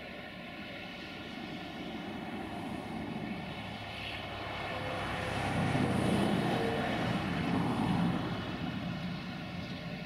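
Caterpillar crawler bulldozer's diesel engine working under load as it pushes soil, with a steady whine throughout. It grows louder about halfway through, then eases off near the end.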